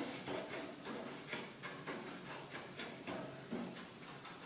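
Faint, quick, even strokes of a yellow plastic spatula scraping a non-stick frying pan, about three a second, as semolina roasting in ghee is stirred constantly to keep it from burning.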